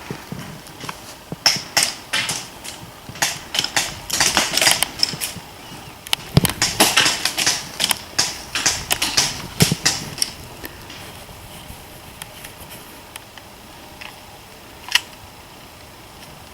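Airsoft guns firing: irregular bursts of sharp clicks for about ten seconds, then one more click near the end.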